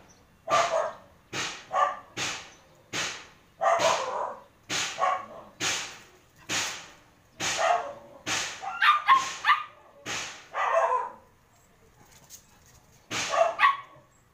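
A dog barking repeatedly, a string of sharp barks coming one or two a second. The barking pauses for about two seconds, then a last few barks come near the end.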